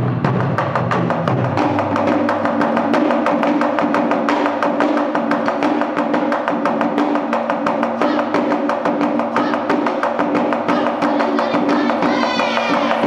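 Japanese taiko drums played in a fast, steady stream of sharp strikes, the small stand-mounted drum giving a crisp cracking beat over the deeper barrel drum, with a steady ringing pitch underneath. Near the end the drummers shout out.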